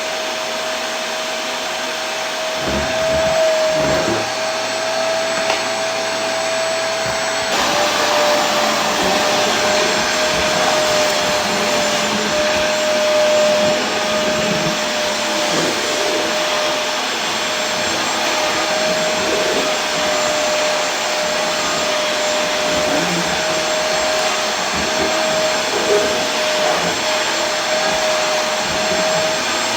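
Vacuum cleaner running steadily: an even rushing noise with a steady whine that steps down slightly in pitch about seven seconds in.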